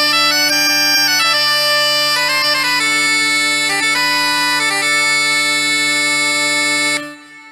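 Bagpipe music: a tune on the chanter over steady drones, which cuts off sharply near the end, leaving a short fading ring.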